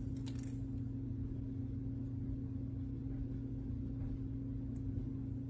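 Steady low hum of room background, with a few faint small clicks from tiny plastic coupler parts being handled.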